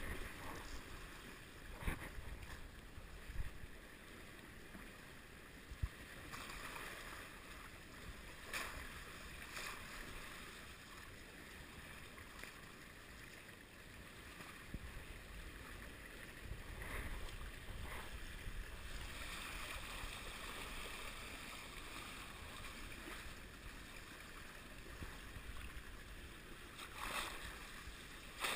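Water rushing and splashing past the hulls of a small Hobie Wave sailing catamaran under sail, faint and steady, with a few sharp slaps of water against the hull.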